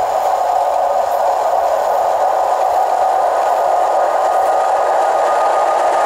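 An EP1M electric locomotive hauling a passenger train approaches. It makes a steady, even running noise with no distinct wheel beats.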